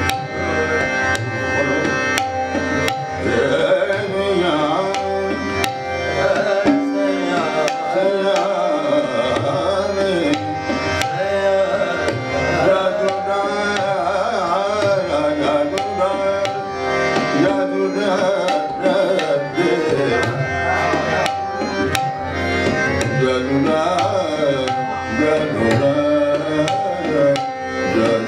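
Hindustani classical khayal in raag Bhairavi: a male voice singing long, gliding melodic phrases, accompanied by harmonium, steady tabla strokes and a tanpura drone.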